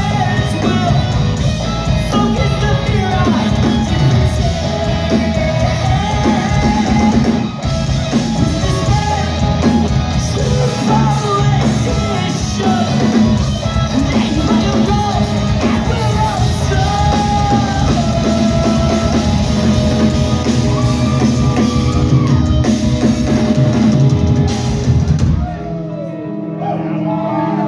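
A post-hardcore rock band playing live, heard from inside the crowd: drums, distorted electric guitars and high sung vocals. Near the end the drums and bass drop out and the music gets quieter.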